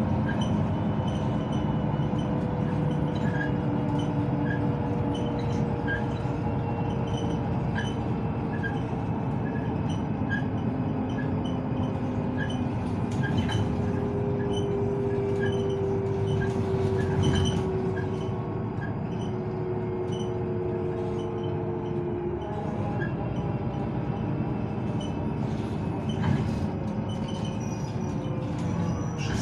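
Ride noise inside a moving articulated city bus: a steady rumble of engine and road with a whine that drifts in pitch and slides down about two-thirds of the way through. A faint, regular ticking comes roughly once a second.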